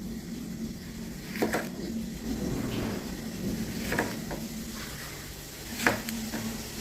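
Kitchen cooking sounds: three short knocks of a utensil against a pot, about two seconds apart, over a steady low hum.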